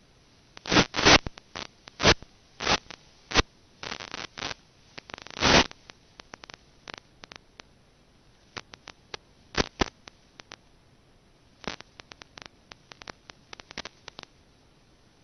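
Irregular crackling static: sharp clicks and short scratchy bursts over a faint hiss, dense and loud in the first six seconds, then sparser. It is noise on the FPV video link's audio, which has no microphone feeding it, so no engine or propeller is heard.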